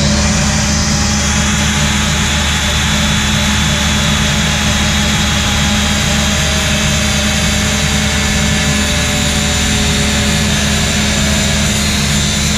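Angle grinder running steadily under load, its cutting disc grinding through a thick rubber-insulated power cable, a high whine over harsh grinding, with a steady low hum underneath.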